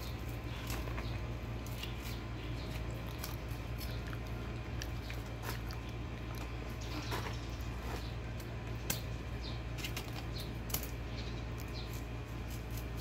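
A knife cutting hands of green bananas off the bunch's stalk: scattered, irregular small clicks and cutting sounds over a steady low hum, with a couple of sharper clicks late on.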